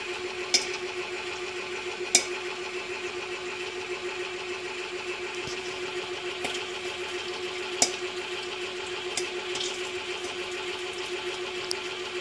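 Great Northern Little Bambino popcorn machine running with its kettle heating: the stirrer motor hums steadily under a faint hiss, with about six scattered sharp clicks from the kettle.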